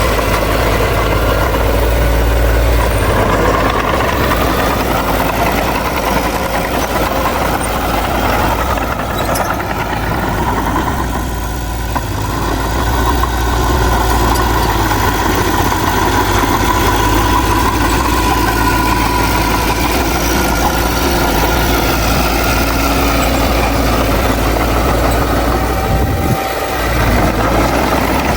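Heavy earthmoving machinery's diesel engine running steadily, with a brief dip in level near the end.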